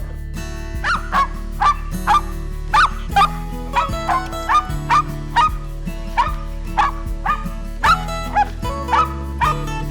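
An animal giving short, high yipping calls in a quick series, about two a second, each one sweeping sharply up in pitch, over background music with held notes.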